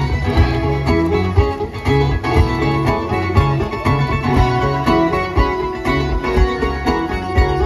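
Live amplified guitar music from an outdoor stage PA: a guitarist playing over a steady beat with heavy bass.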